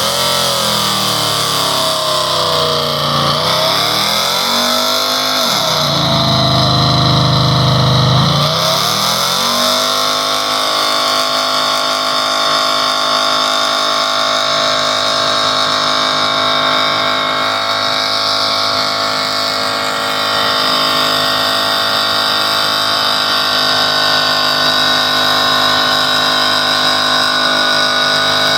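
Dodge pickup truck's engine revving up and down for about the first ten seconds, then held at a steady high rev through the rest of a burnout.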